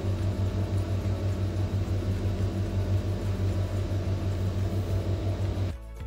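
Induction cooktop running: a steady fan hiss over a low hum that pulses several times a second, cutting off suddenly near the end.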